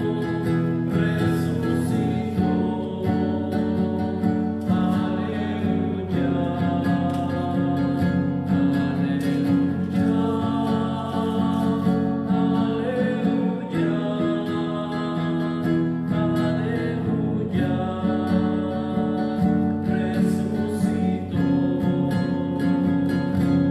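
Music led by a strummed acoustic guitar, its chords changing every couple of seconds.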